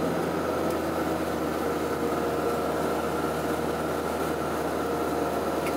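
Car running at steady speed, engine hum and tyre-on-road noise heard inside the cabin.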